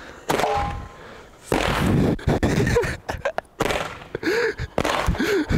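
Handheld multi-shot firework tube firing its charges one after another: a sudden loud shot about a quarter second in, another about a second and a half in, then a run of shorter sharp cracks.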